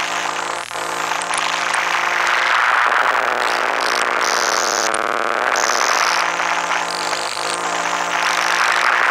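Layered electrical drone of circuit-bent hard-drive motors driven by control voltage and picked up by induction coils. Steady humming tones sit over a dense hiss, with a band that sweeps down and back up in the middle. High-pitched noise switches on and off abruptly several times.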